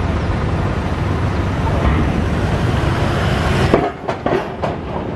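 Steady rumble of vehicle engines. About four seconds in, a few sharp clanks follow as an SUV's tyres roll over the joints of a steel loading ramp.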